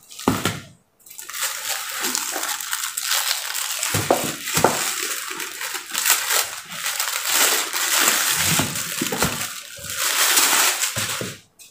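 Clear plastic wrapping crinkling and rustling as it is pulled off a boxed watch case by hand, with a few light knocks as the box is handled.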